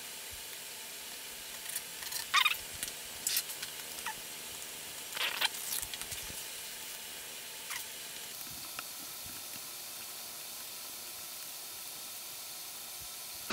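A small screwdriver working screws at the edge of an LCD panel's aluminium back cover: several short squeaky scrapes and clicks in the first six seconds, over a steady hiss. After that, mostly just the hiss, with a faint scrape and a tick.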